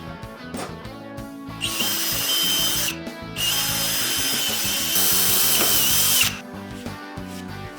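A power tool running in two bursts, about a second long and then about three seconds long, with a high steady whine over a hiss; background music plays throughout.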